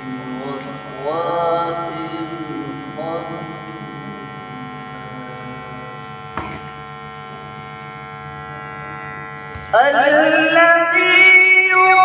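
A man reciting the Quran in melodic qirat style into a microphone, over a steady electrical hum. The recitation trails off in the first few seconds, leaving a pause of about five seconds with only the hum, then resumes loudly with a rising, ornamented phrase near the end.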